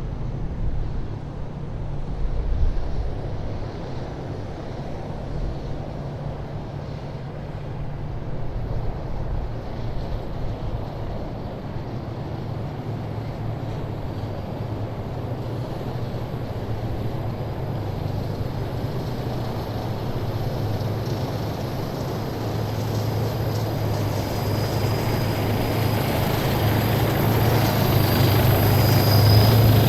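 Military vehicles' engines running as a column drives past: a steady low hum, joined about halfway through by a high whine that, with the overall level, grows louder toward the end as a vehicle comes closer.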